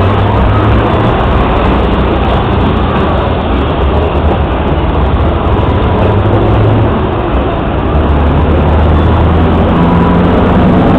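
Heavy truck diesel engines running loud, a dense steady roar over a deep low rumble.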